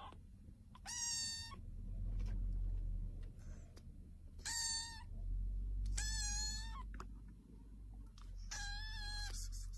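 A kitten meowing four times: short, high-pitched mews, the later ones a little longer. A steady low rumble runs underneath.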